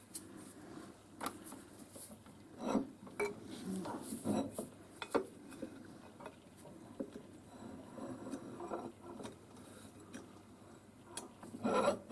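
Steel tubing being handled at a press: scattered metal knocks and clinks with some rubbing, and a louder clunk near the end.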